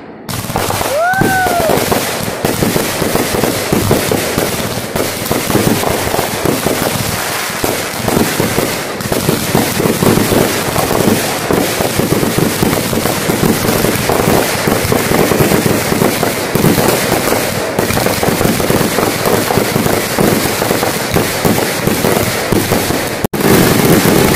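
Consumer firework cakes and aerial shells in a finale barrage: rapid, overlapping bangs and crackling with no break. The sound drops out for a moment near the end.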